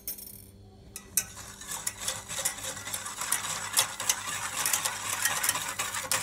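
Wire whisk beating a milk, sugar, cornstarch and cocoa mixture in a stainless steel saucepan: fast scraping and clicking of the wires against the metal, starting about a second in.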